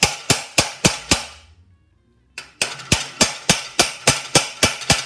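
Hammer blows on a long threaded rod, knocking a needle bearing out of the torsion tube of a 1974 VW Beetle ball-joint front axle beam. Two quick runs of sharp strikes at about four a second, with a pause of about a second between them.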